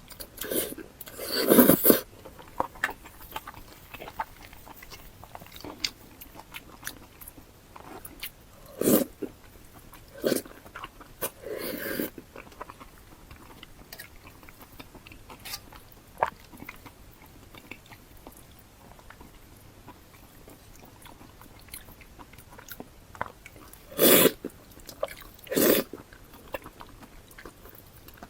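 Close-miked eating sounds: chewing and biting with small wet clicks throughout. About six louder mouth noises, each roughly a second long, break through; the loudest come near the start and twice near the end.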